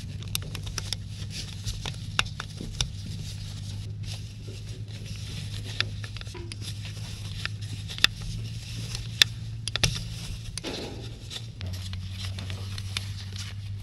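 A hand tool working the mounting bolts of an ATV starter: scattered metal clicks and taps, with gloved hands brushing against the parts. A steady low hum runs underneath.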